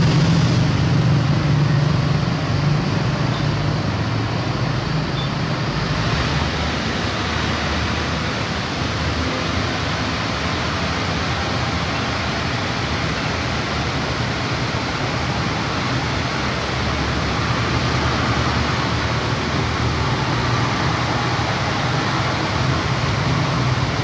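A UD Quester truck's diesel engine runs as the loaded truck drives up a dirt road. About six seconds in, the sound changes to a steady rush of water pouring over a small weir, with the truck's engine running low beneath it.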